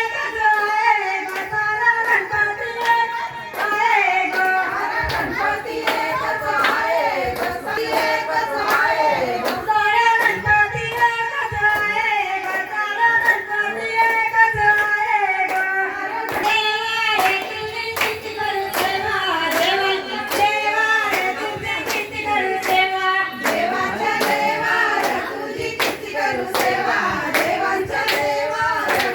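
A woman singing a traditional Marathi Ganpati devotional song, with steady hand claps keeping the beat.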